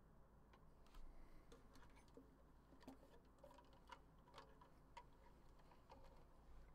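Near silence with faint scattered clicks and taps, some with a short faint ring: a ukulele being picked up and handled, its strings and body touched now and then.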